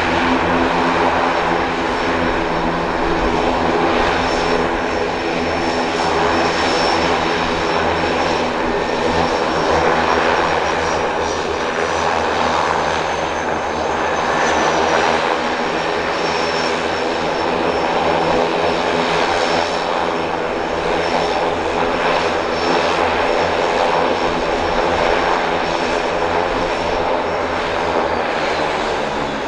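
Quest Kodiak 100 floatplane's Pratt & Whitney PT6A-34 turboprop running steadily at low power: a propeller drone with a thin high turbine whine over it. The whine sinks a little near the end.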